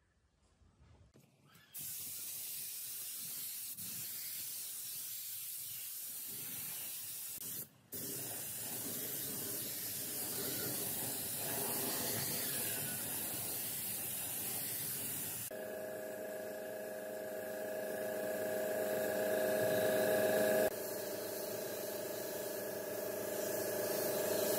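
Gravity-feed spray gun hissing steadily as compressed air atomizes finish onto the wood. The hiss starts about two seconds in and breaks off briefly about a third of the way through as the trigger is let go. A steady hum with several tones joins it a little past halfway.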